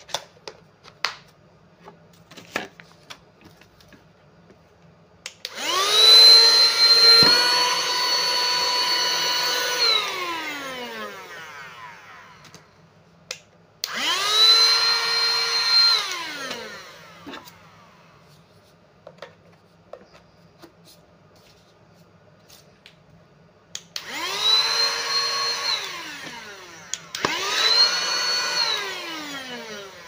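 Youmiai handheld cordless vacuum cleaner's motor switched on four times, each time spinning up quickly to a steady high whine and then winding down in falling pitch after it is switched off. The first run is the longest, with its pitch stepping up slightly partway through. Small clicks and knocks of the plastic body being handled come between the runs.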